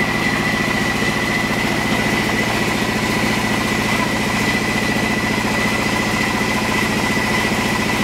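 Band sawmill running steadily: an even mechanical drone with a fast regular pulse and a steady high whine.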